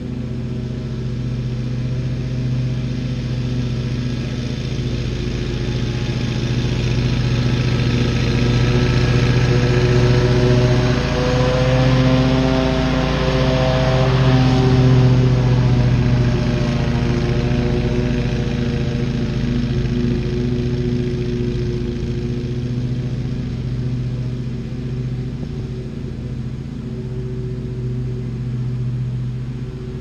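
Wright Stander stand-on commercial lawn mower's engine running steadily while mowing, growing louder toward the middle as the mower passes nearest, then fading as it moves away.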